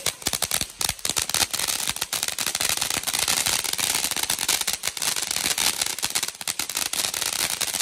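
A string of firecrackers going off: a rapid, continuous rattle of many small bangs.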